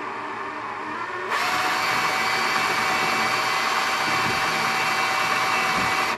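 Electric power drill boring through the ATV's plastic body panel to enlarge a hole. It runs slower at first, speeds up to a louder, steady whine about a second and a half in, then stops suddenly at the end.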